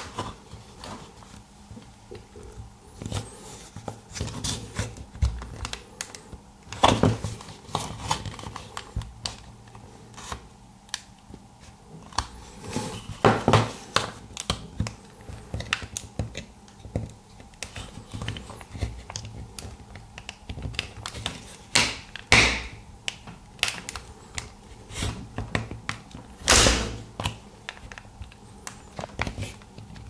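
A thin metal blade scraping and clicking along the seam of a screwless plastic remote-control case as it is pried at, with a few louder plastic clicks and cracks where the snap-fit halves resist.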